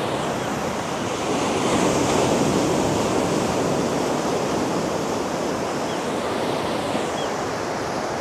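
North Sea surf washing onto the beach on an incoming tide: a steady rush that swells about two seconds in and then slowly eases.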